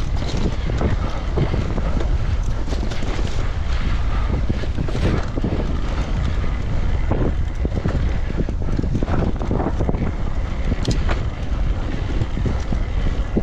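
Wind buffeting the microphone during an electric mountain bike ride, with scattered knocks and rattles from the bike running over rough ground.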